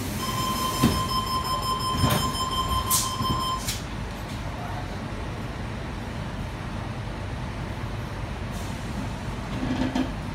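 Tangara train's door-closing warning tone sounding steadily for about three and a half seconds while the passenger doors slide shut, with a few knocks as they close. After that, the steady low rumble of the carriage.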